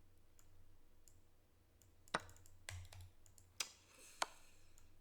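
Sharp clicks of moves being made in a fast online chess game on a computer: a few faint clicks, then three or four louder ones in the second half.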